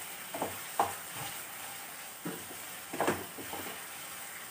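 Wooden spatula stirring a thick onion-garlic masala paste in a frying pan, scraping against the pan about five times, over a soft steady sizzle of the paste frying in oil.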